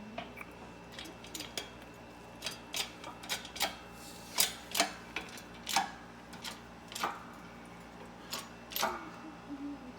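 Irregular light clicks and taps of small parts and tools being handled, about fifteen of them, loudest in the middle.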